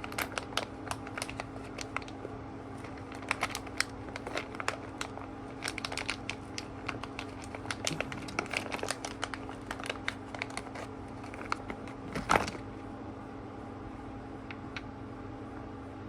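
Small plastic amp knobs being handled and clicked together, with a small plastic bag crinkling: many irregular light clicks and rustles, and one louder knock about twelve seconds in, after which it goes quieter. A steady low hum runs underneath.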